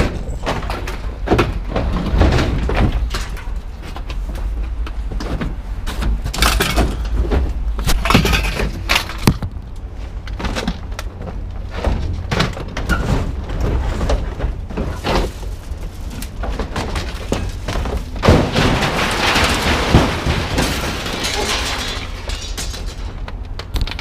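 Aluminum pickup truck cap being thrown and shoved off a truck bed onto the ground: irregular metallic bangs and knocks, with a longer scrape about three-quarters of the way in, over a steady low rumble.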